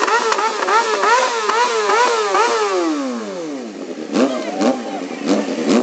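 Suzuki GSX-R sport bike's inline-four engine revved hard in a burnout, the revs bouncing up and down about three times a second, then sinking away as the throttle is closed. A few sharp cracks and short blips follow near the end.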